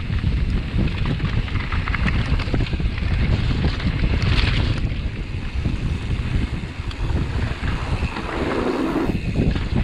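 Wind buffeting the camera microphone of a mountain biker descending a dirt trail at speed: a steady low rumble, with the bike's tyres and frame clattering over the ground.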